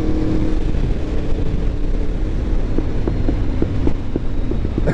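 Aprilia RSV4 1100 Factory's V4 engine through a full titanium Akrapovic exhaust, under way with heavy wind rush on the microphone. The engine's steady note fades as the throttle closes, and in the second half the exhaust gives a quick string of off-throttle pops.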